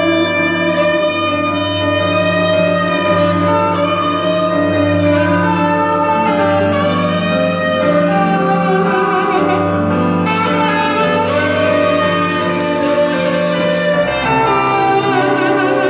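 Live band music: an instrumental passage with held, slightly wavering melody notes over a sustained low bass note, the chord changing about fourteen seconds in.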